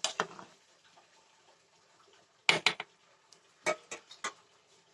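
A metal spoon knocking and clinking against a cooking pot in a few short sharp strikes, the loudest pair about two and a half seconds in and a few more near the end.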